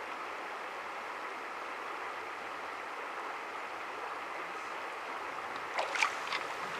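Steady rush of shallow river water flowing over a stony bed. About six seconds in come a few short splashes as a brown trout is released from the hands into the shallows.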